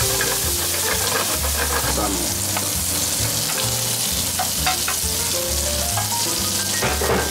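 A pan of mushrooms and cherry tomatoes in butter, oil and white wine sizzling hard over a high gas flame, stirred with wooden chopsticks that click against the pan now and then. About halfway through, pieces of smoked salmon are tipped in from a metal tray and keep sizzling, with soft background music underneath.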